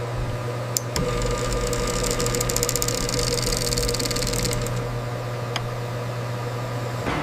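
Machine tool running while it works a cylinder bore: a steady hum and whine with a fast, high run of ticks from about two to four and a half seconds in. It stops near the end.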